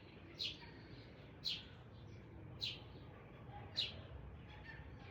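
A bird chirping: four short, high chirps that each drop quickly in pitch, repeated about once a second.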